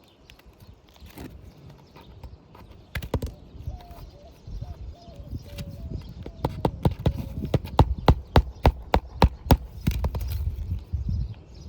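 Hammer driving roofing nails into an asphalt shingle: a few scattered knocks, then a steady run of about a dozen sharp strikes, roughly three a second.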